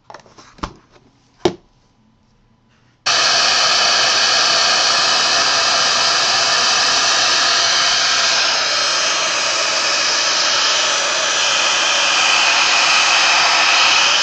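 A few light knocks, then about three seconds in a craft heat gun switches on abruptly and runs with a steady rush of hot air. It is melting sparkle embossing powder on stamped card stock.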